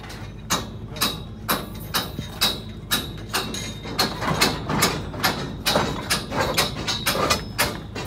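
Sharp metal clicks and knocks from steel scaffold tubes, couplers and formwork tie-rod clamps being worked by hand. They come about two a second at first and faster and closer together from about halfway through.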